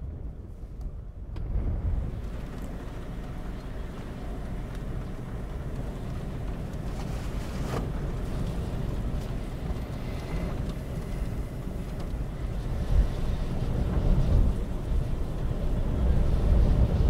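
Wind buffeting the microphone: a gusty low rumble that grows louder toward the end.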